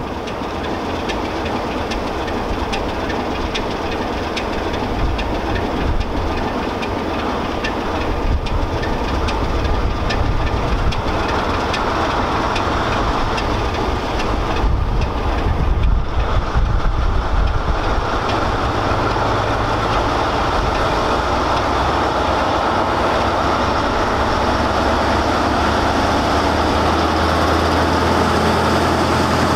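British Rail Class 03 diesel shunter's Gardner eight-cylinder engine working as it hauls a train of coaches, with a steady low engine note, growing gradually louder as it approaches.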